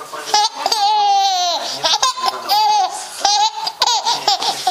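A young child laughing and squealing in high-pitched bursts, with one longer squeal that falls in pitch about a second in.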